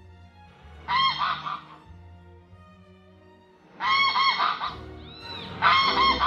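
A bird honking: three bursts of rapid, repeated honks, each about a second long, over soft background violin music.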